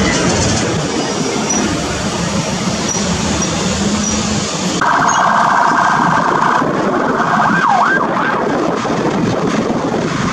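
Fire engine's electronic siren starting about halfway through with a rapid warble for about two seconds, then a few rising and falling wail sweeps, over steady vehicle noise.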